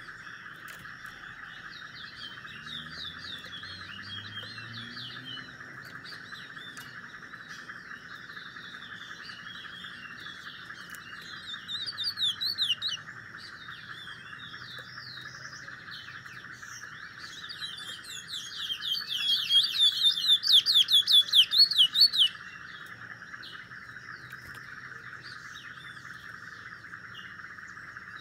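A small caged songbird singing: quick chirps and twitters, a loud burst of song about twelve seconds in, and its loudest fast trilled run for about four seconds from around eighteen seconds. A steady hiss sits underneath.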